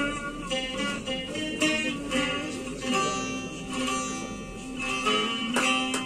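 Bağlama (long-necked Turkish saz) played solo: a quick plucked melody that closes with a few hard strums near the end.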